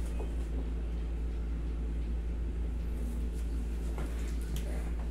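Steady low hum of a window-type air conditioner running, with a few faint soft ticks a little before the end.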